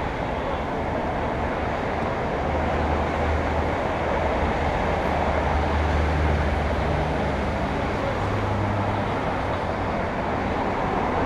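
Steady low rumble of city traffic, with a low engine hum that steps up slightly in pitch about eight seconds in.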